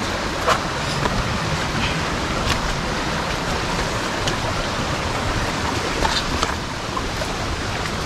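Steady rush of a rocky forest stream flowing over boulders, with a few faint light clicks.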